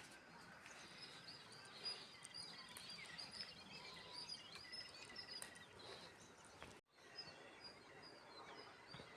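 Faint chirping of several small birds, many quick high twitters overlapping, with the sound cutting out for a moment about seven seconds in.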